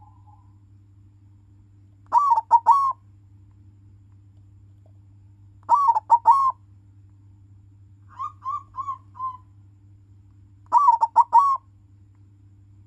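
Zebra dove (perkutut) of a bred silver colour form cooing its song: three loud phrases of a few quick notes each, about four seconds apart, with a softer four-note phrase between the second and third. A faint steady low hum runs underneath.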